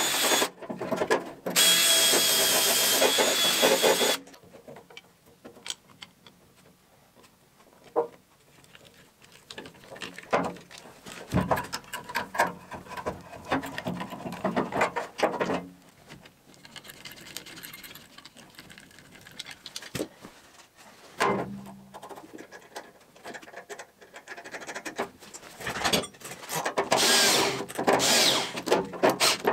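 A cordless drill runs hard, boring through a fabric conveyor belt and steel plate, with a brief stop about a second in; it stops after about four seconds. Then come scattered light clicks and knocks of hands handling the belt, bolts and tools. Near the end the drill runs again, fitted with a socket bit on the clamp-plate bolts.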